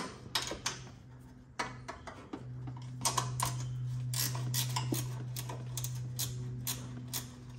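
Ratchet and socket clicking and clinking in short, irregular runs as the 14 mm nuts on top of a front strut mount are undone, over a steady low hum that grows louder about two and a half seconds in.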